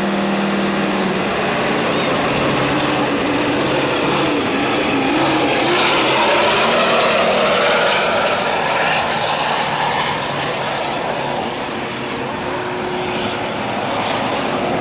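Heavily modified diesel pulling truck running flat out under full load as it drags a pulling sled, with a high turbo whistle that climbs over the first couple of seconds. The engine noise eases slightly in the second half as the truck pulls away down the track.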